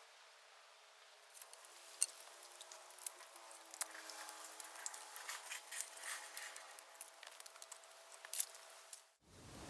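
Bamboo burning on a bonfire, crackling with irregular sharp pops over a faint steady whistle. The sound cuts off suddenly near the end.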